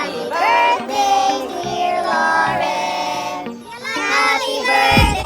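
Music with high, childlike singing voices. A low thump comes near the end.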